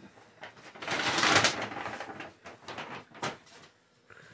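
Computer parts being handled: a rustling scrape lasting about a second, then a few scattered clicks and knocks.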